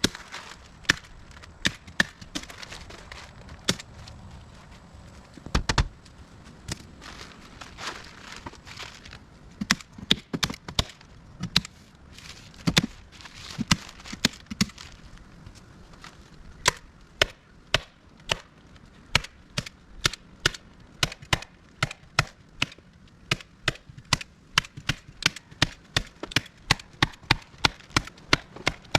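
A tool striking wood again and again. The first half of the strikes are scattered and irregular; from about halfway they become a steady run of about two blows a second.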